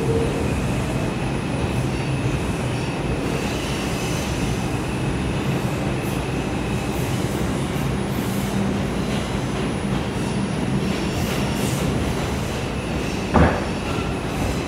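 R142 subway car running slowly through a tight curve, heard from inside the car: a steady rumble and motor hum with a thin, high wheel squeal held through most of it. A single sharp knock comes near the end.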